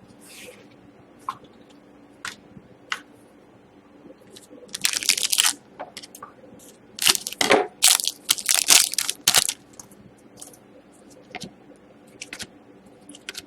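Crinkly plastic of a trading-card pack wrapper being handled, loudest in two crackling stretches about five seconds in and from about seven to nine and a half seconds, with small clicks and taps of cards being shuffled in between.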